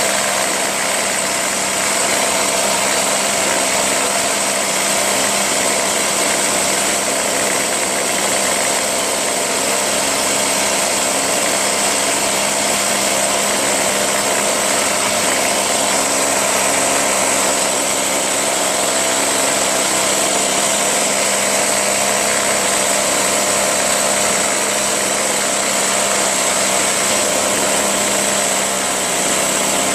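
Ryobi 25.4cc two-stroke backpack leaf blower engine running steadily; its kill switch cannot shut it off because the switch's ground wire has come loose.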